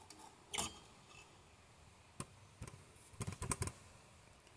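Small metal drum-brake parts and tools clicking and clinking as they are handled: a sharp click about half a second in, another about two seconds in, then a quick run of clicks.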